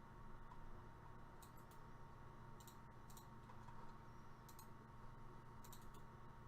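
Faint clicking at a computer, mostly quick pairs of clicks about once a second, over quiet room tone.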